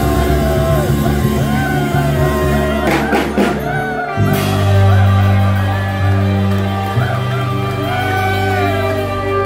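A congregation singing a hymn over instrumental accompaniment with sustained deep bass notes, and a brief burst of shouting from the crowd about three seconds in.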